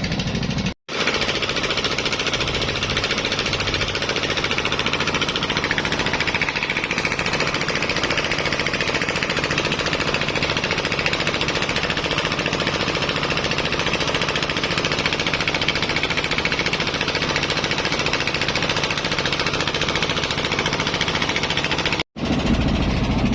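A machine, most likely an engine heard up close, running with a loud, fast, steady rattle. It is cut in and out abruptly about a second in and again near the end.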